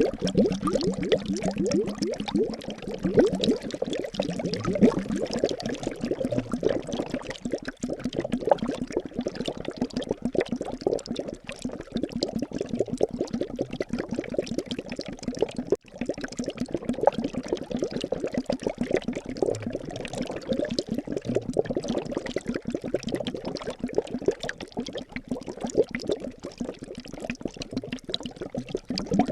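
Liquid bubbling steadily, a dense run of small pops and gurgles, which briefly drops out a little past halfway.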